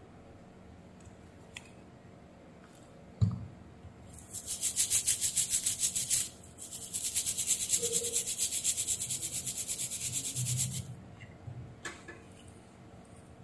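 Stiff-bristled brush scrubbing a printed circuit board in quick back-and-forth strokes, several a second, in two bouts with a brief pause between them. A single knock comes just before the scrubbing and is the loudest sound.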